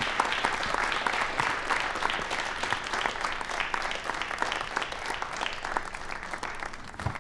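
A group of people applauding, many hands clapping at once, tapering off near the end.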